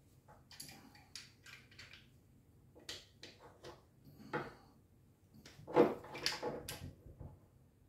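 Small metal pipe fittings and tools being handled on a wooden workbench: scattered light clicks and clinks, with a louder cluster of knocks about three-quarters of the way through.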